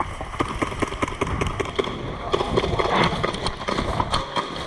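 Airsoft guns firing: a fast, irregular crackle of sharp cracks from several guns, thickest about halfway through.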